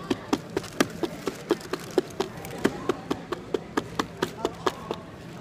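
A fast, even run of sharp taps or knocks, about four to five a second.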